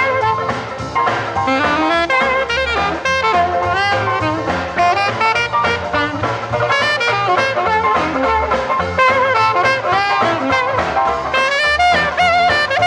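Instrumental break of a 1954 hillbilly bop song dubbed from a 78 rpm record: the band plays the tune without singing, over a steady beat.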